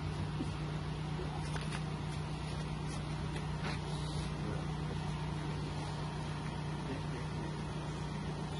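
An engine running steadily at idle, an even low hum, with a few faint knocks.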